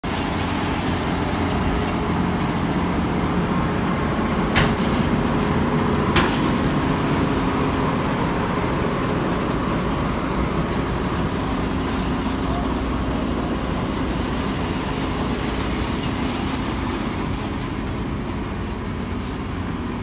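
New Holland combine harvester running, its engine and machinery making a loud, steady drone. Two sharp knocks stand out about four and a half and six seconds in.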